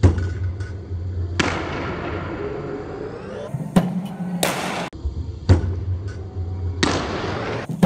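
A series of sharp cracks and thuds, about six, from a cricket ball coming off the bat and striking the net hall, some ringing on briefly in the hall, over a low steady hum.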